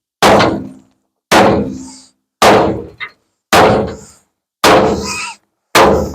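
Six heavy hammer blows, about one a second, on the bent front-end sheet metal of a 1950 Ford F1, each strike ringing out briefly: straightening out crash damage.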